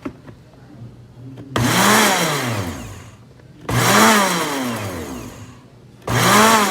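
Electric blender pulsed three times on egg whites, whipping them for frosting. Each burst starts suddenly, the motor pitch rising and then sliding down as it coasts to a stop.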